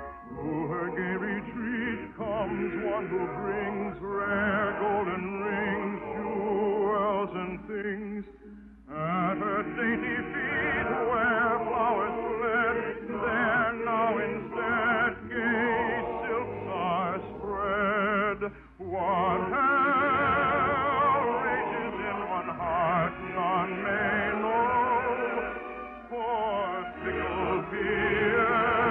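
Operatic singing with a wide vibrato over instrumental accompaniment, in long sung phrases broken by two brief pauses, about a third and two thirds of the way through.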